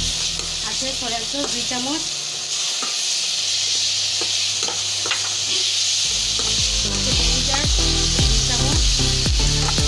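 Shredded cabbage and onion sizzling in hot oil in a metal wok, stirred and tossed with a steel spatula that scrapes against the pan.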